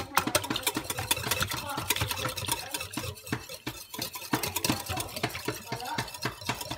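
Wire whisk beating egg and milk in a glass mixing bowl, its wires clicking rapidly and rhythmically against the glass.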